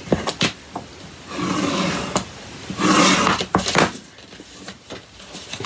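Sheet of designer series paper rubbing and rustling as it is pressed along its score lines and then lifted off the mat. There are two longer scraping swishes and a few light taps.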